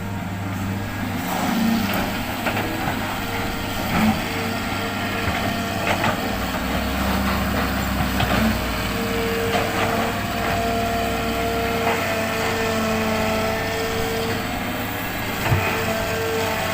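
Hitachi hydraulic excavator's diesel engine running steadily while loading sand, with a heavier low rumble for several seconds in the middle and a few sharp knocks.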